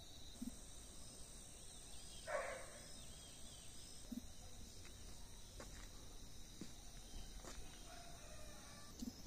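Faint dawn outdoor ambience: steady, high-pitched insect trilling, with one short animal call about two seconds in and a few soft knocks.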